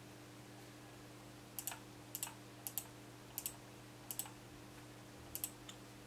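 Computer mouse button clicking six times at uneven intervals of about half a second to a second, each click a quick press-and-release pair, as letters are picked on an on-screen keyboard. A faint steady hum lies underneath.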